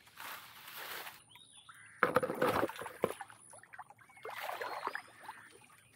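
Water splashing and sloshing in three bursts about two seconds apart, the middle one the loudest, as shallow stream water is stirred up.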